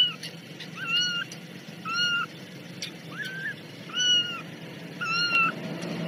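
A kitten mewing repeatedly: six short, high-pitched mews, about one a second.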